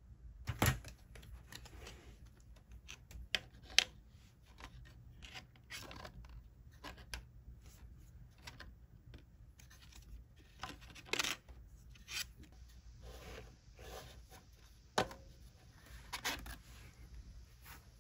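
A 3D-printed plastic crate handled in the fingers: irregular small clicks, taps and scraping of plastic, with the sharpest click a little under four seconds in.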